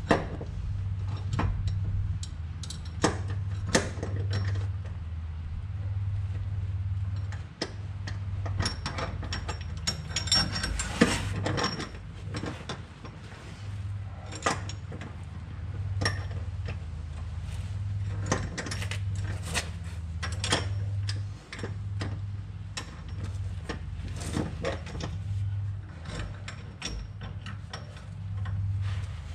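Scattered metallic clicks and clanks of hand tools being worked on subframe bushing hardware, over a steady low hum.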